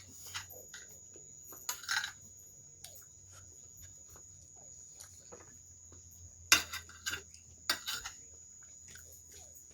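Close-miked eating sounds: wet chewing and lip smacks, a string of short clicks with louder smacks about two seconds in and again around six and a half to eight seconds.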